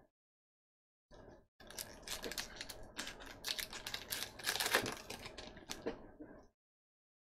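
Trading card pack wrapper being torn open and crumpled by hand: a run of crackling, rustling clicks that starts about a second in and stops about a second before the end.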